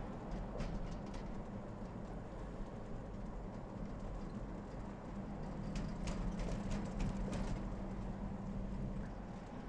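Toyota 4Runner SUV driving on a paved road: a steady engine and tyre drone, with scattered light clicks about six to seven and a half seconds in.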